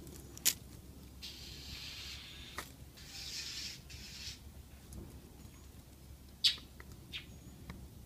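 Mockingbird nestlings giving hissing begging calls for about three seconds, with a few sharp clicks, the loudest about half a second in and again near the end.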